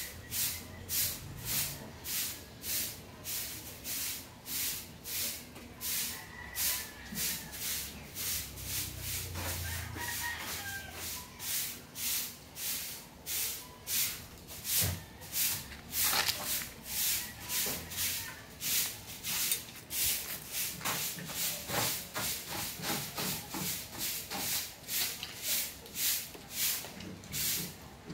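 A rhythmic scraping hiss, about two even strokes a second.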